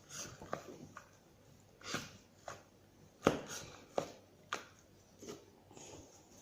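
A series of irregular light knocks and taps, about six of them spread over a few seconds, the sharpest a little past the middle.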